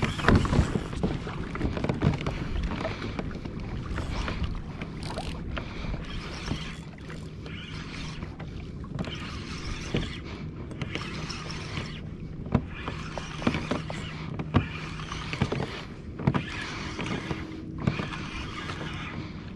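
Water sloshing and slapping against a fishing kayak's hull, with wind on the microphone and frequent short splashy knocks. A faint low steady hum comes in about a third of the way through.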